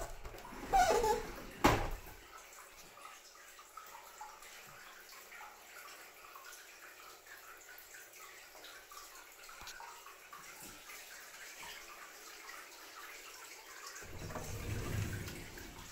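Hot-spring water pouring steadily from a spout into an indoor bath, a steady splashing hiss. In the first two seconds a bathroom door is opened with knocks and a sharp click, and near the end there is a louder low rumble as a door is handled.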